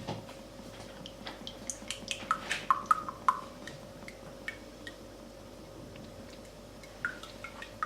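Light clinks and taps of glassware, some with a brief ringing tone, bunched from about one and a half to three and a half seconds in and again near the end, as a glass of olive oil is poured over garlic in a glass jar. A faint steady hum runs underneath.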